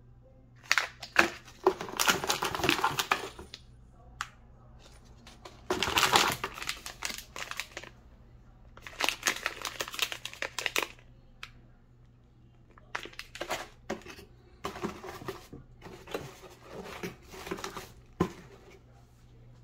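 Plastic packaging crinkling and rustling as it is handled: soft poly sleeves and foil pouches, in several bursts with short pauses and a few sharp crackles.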